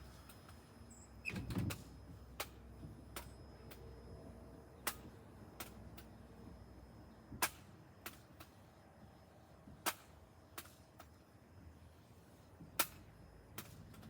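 BB gun fired over and over, a sharp crack about every two and a half seconds, each followed soon after by a fainter click. There is a dull thump about a second and a half in.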